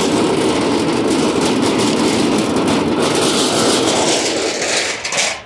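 Empty flatbed cart pushed across asphalt, its hard wheels rolling and rattling in a loud, steady rumble that cuts off suddenly at the end.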